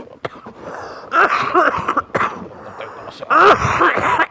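A man coughing in harsh fits with throat clearing, two loud bouts about a second in and near the end. It is a persistent cough that medical treatment has not cleared.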